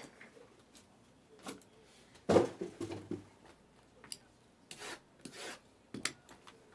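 Sealed Panini Obsidian hobby boxes of trading cards being handled, rubbing and sliding against each other. One knock about two seconds in is the loudest, followed by scattered scrapes and clicks.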